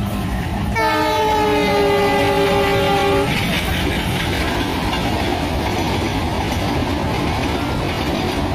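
Diesel freight locomotive blows its horn for about two and a half seconds as it runs through the station without stopping, the pitch dropping slightly as it passes. Then a long string of freight wagons rumbles and clatters past.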